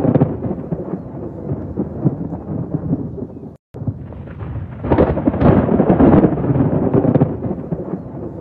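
Thunder rumbling through steady rain. The sound drops out to silence for a moment a little before halfway, then a louder roll of thunder builds and fades back to rumbling.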